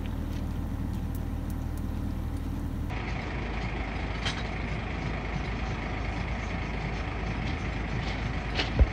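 Steady low rumble of an idling engine. The background changes abruptly about three seconds in, and a sharp knock comes just before the end.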